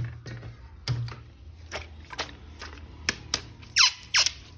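Hard plastic clicking and snapping of a toy action figure and its parts being handled, in scattered sharp clicks, with two short, loud squeaks near the end.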